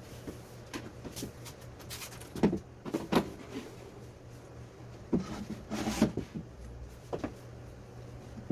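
Irregular knocks and clatters of wooden parts being handled, the loudest about two and a half, three, five and six seconds in, over a steady low hum.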